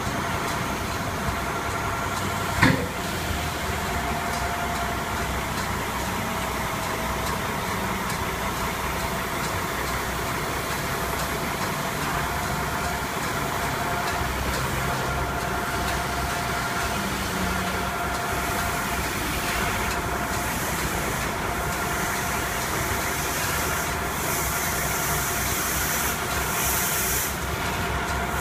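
Engine of a Roadtec RX-45 cold milling machine running steadily as the machine drives forward onto a lowboy trailer, with a steady whine throughout. A sharp click comes about two and a half seconds in, and a hiss rises for a few seconds near the end.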